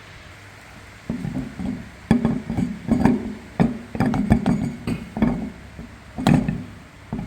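Irregular metal clanks and knocks, each with a short ringing tone, as bolts and wheel parts of a stump grinder are handled and fitted, starting about a second in.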